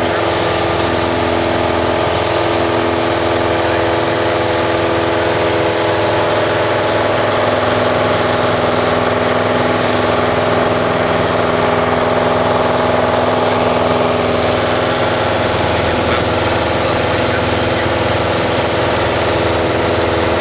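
Piper PA-28-181 Archer's four-cylinder Lycoming O-360 engine and propeller running steadily at climb power, heard inside the cabin.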